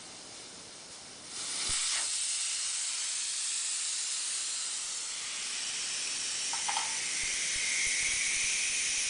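Compressed air hissing steadily from the pneumatic system of a Bright LC 885 automatic tyre changer. The hiss starts suddenly about a second and a half in, with a faint click partway through.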